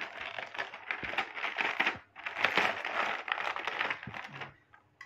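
Plastic wrapping crinkling and rustling as it is peeled off a dinner plate, in two stretches with a short pause about two seconds in, dying away near the end.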